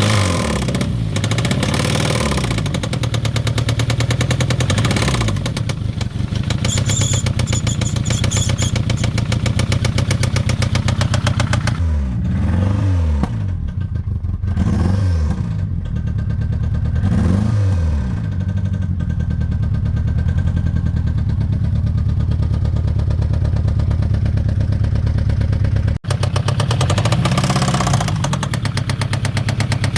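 Citroën ZX 1.9 engine running with a fast, even knocking. The revs are blipped briefly several times, rising and falling.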